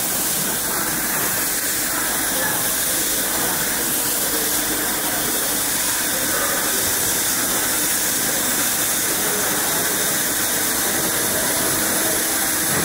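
Automated pillow-plate laser welding machine running, heard as a steady hiss that holds level without a break.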